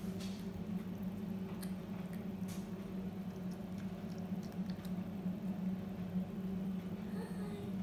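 Cat chewing kibble from a stainless steel bowl: faint, irregular small clicks and crunches over a steady low hum.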